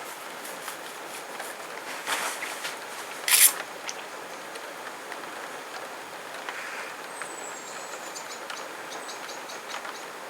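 Heavy rain falling steadily as an even hiss, with two short, louder splashes or crackles about two and three and a half seconds in.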